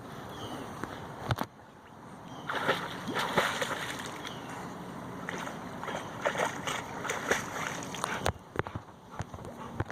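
Water splashing and sloshing in irregular bursts, busiest from about two and a half to eight seconds in, with a couple of sharp knocks before it.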